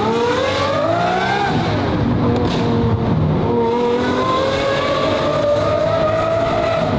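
Lamborghini Aventador SVJ's V12 engine accelerating: the pitch rises, drops about a second and a half in at an upshift, then climbs slowly again under steady load.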